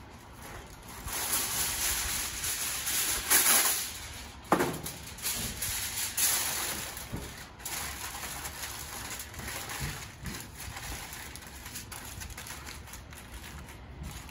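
Aluminium foil crinkling and rustling as it is folded around a roast in a pan. It is loudest in the first half, with a sharp knock about four and a half seconds in.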